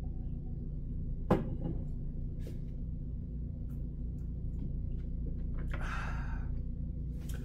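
Steady low room hum with a few small clicks and knocks from a beer glass being drunk from and set down on a coaster; the sharpest click comes about a second in, and a short soft rustle follows near the end.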